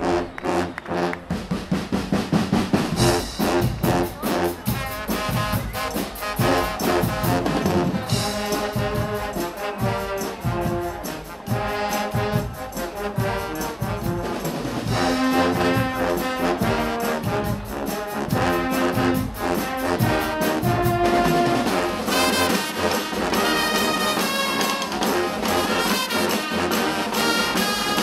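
A Guggenmusik carnival band playing live: trumpets, trombones and sousaphones over a drum kit, snare drums and cymbals. Drums lead at first, and the brass comes in a few seconds in and plays on over a steady beat.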